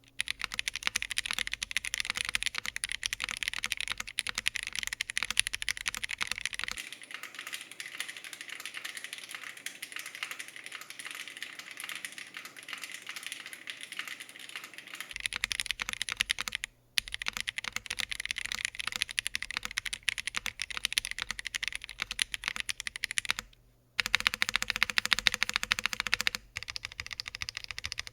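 Fast typing on an Akko MOD007S V2, an aluminium, gasket-mounted 75% mechanical keyboard fitted with Akko POM Pink switches. The keys clack steadily, with the typing cut off abruptly and resumed twice.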